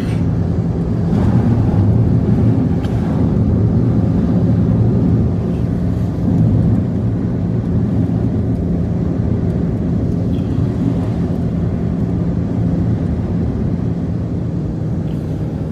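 An engine running steadily, with a low even hum and no change in speed. It starts and stops abruptly.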